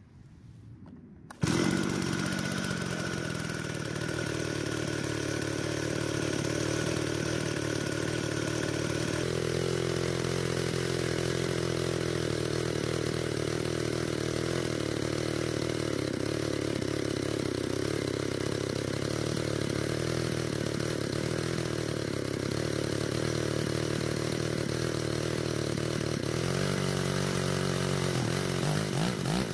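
Stihl 034 AV Super two-stroke chainsaw engine starting about a second in and then running at a steady low speed, never revving up. The chain is not moving: the clutch drum's needle bearing is gone, so the drum binds against the case and holds the engine back.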